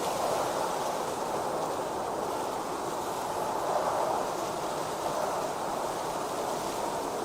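Outdoor ambience of a snow field: a steady, even rushing noise that swells gently once or twice, with no distinct events.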